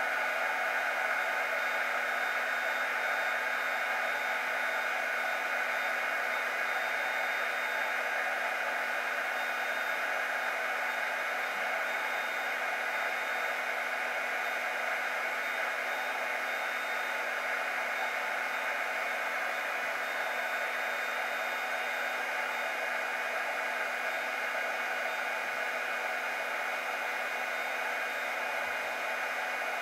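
Electric heat gun running steadily, its fan blowing a stream of hot air with a faint steady whine through the rushing air, as it heats a broadhead's shank and head insert for hot melt glue.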